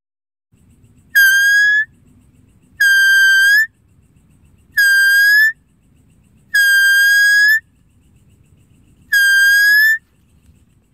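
Deer-caller whistle blown five times: loud, steady whistled notes, each under a second long and rising slightly at its end, spaced one to two and a half seconds apart.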